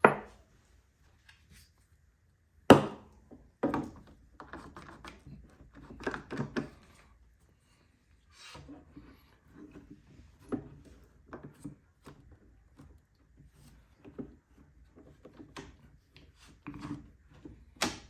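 Clamps being handled and set onto a glued wooden chair leg: a series of sharp wooden knocks and clacks, the loudest about two and a half seconds in and just before the end, with rubbing and scraping between them.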